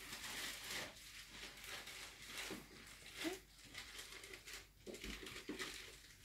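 Baby wombat suckling at a small milk bottle's teat: irregular soft sucking and smacking noises with a few brief squeaks, mixed with the rustle of cloth.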